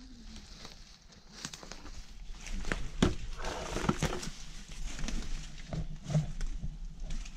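Footsteps on rubble and through undergrowth, with irregular sharp cracks, scrapes and the rustle of brush against clothing. It grows louder about two seconds in.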